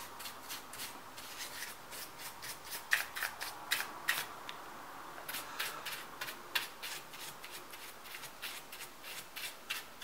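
Bristle paintbrush sweeping dust out of an opened MacBook Pro, brushing over the logic board and aluminium case in quick, irregular scratchy strokes, two or three a second, with a short pause about four seconds in.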